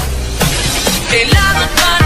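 Background pop music with a bass line and drum hits.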